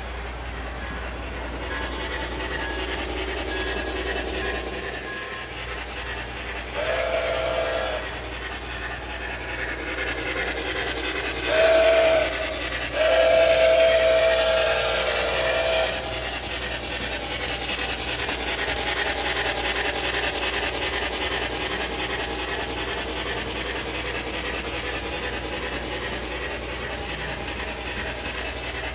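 Steam locomotive running with a steady rhythmic chuff, sounding its multi-tone whistle three times: a blast of about a second around seven seconds in, a brief toot near twelve seconds, then a long blast of about three seconds.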